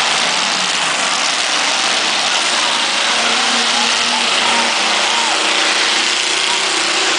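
Several demolition derby cars' engines running and revving as the cars shove each other around a dirt arena, under a loud, steady crowd din from the grandstand.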